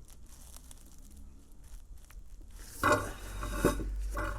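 Gear oil being squeezed from a plastic bottle into a differential filler hole: faint crinkling and crackling of the plastic at first, then a louder, pitched squeaking sound from about three seconds in.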